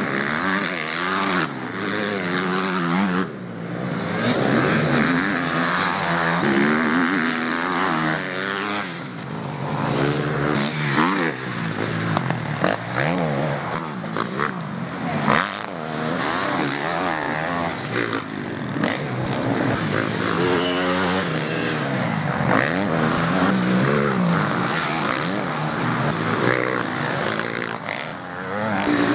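Motocross bikes on a dirt track, their engines revving up and down again and again as riders accelerate, shift and ease off while they pass close by.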